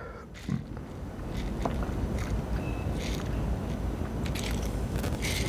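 A person sipping ice-cold water through a straw from a plastic tumbler: steady sucking with a few faint clicks.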